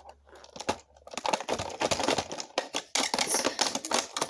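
Hard plastic casing of an iPod dock radio clattering and clicking under rapid, irregular jabs of a screwdriver, starting about a second in.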